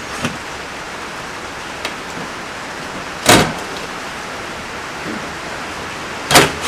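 Two loud, short knocks about three seconds apart over a steady hiss, from hand-tool work on the metal refrigerator's feet and frame as their screws are taken out and loosened.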